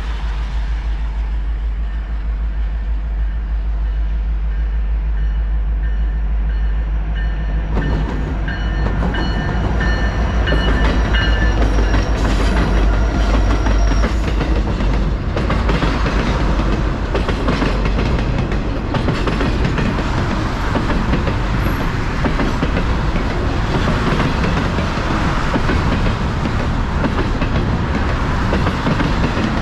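Double-stack container freight train: the diesel locomotives rumble as they approach and pass about 8 seconds in, with a thin high whine for several seconds. The container cars then roll by with a steady rumble and rail clatter.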